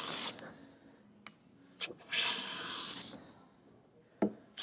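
Hand plane with a freshly sharpened iron, set for a light cut, taking fine shavings off a curly maple board: a stroke ends as the clip begins and another long hissing stroke of about a second starts about two seconds in. A few short knocks fall between the strokes, the sharpest shortly before the end.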